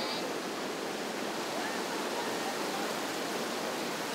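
Whitewater rapids rushing: a steady, unbroken wash of fast water.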